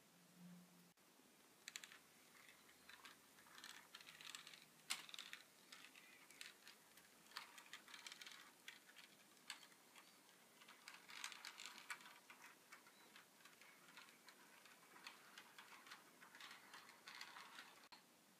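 HO scale model trains running, faint and irregular clicking and rattling of small metal wheels over rail joints and turnouts.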